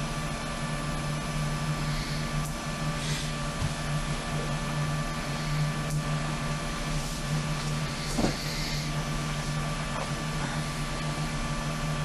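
Steady hiss and electrical hum of an interview tape recording, with a few faint brief noises and a single soft knock about eight seconds in.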